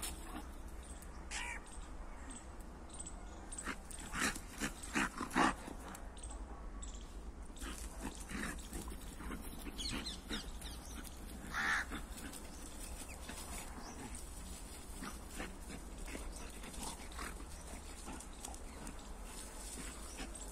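A Labrador and a pit bull scuffling, with a quick run of short, loud barks about four to five seconds in and one more sharp bark near the middle.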